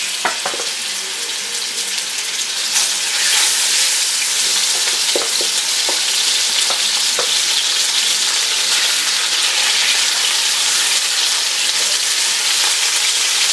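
Diced chicken pieces sizzling in hot vegetable oil in a pot as they are laid in, the sizzle growing louder about three seconds in, with a few light ticks as more pieces go in.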